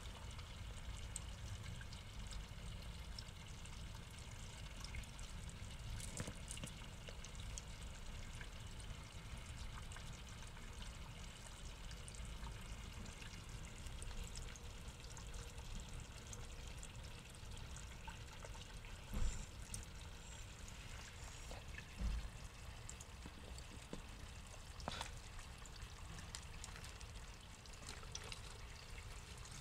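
Steady trickle of water running into a small garden pond, with two dull bumps about two-thirds of the way through.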